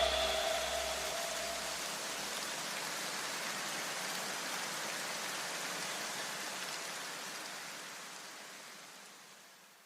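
A soft, even hiss like rain, with no tone or beat, slowly fading out and gone about nine seconds in.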